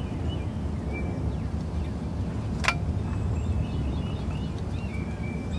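Backyard ambience: a steady low rumble with faint bird chirps, and one sharp click about halfway through.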